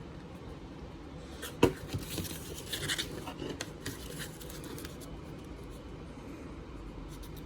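Faint handling noises: a sharp click about a second and a half in, then light scratching and rustling for a couple of seconds.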